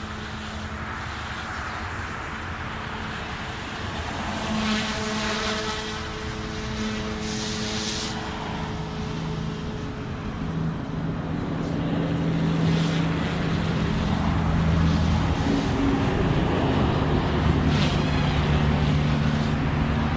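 OMP Hobby M2 brushless electric RC helicopter in aerobatic flight: a steady rotor and motor hum whose pitch shifts up and down as it manoeuvres, growing louder in the second half, over wind noise.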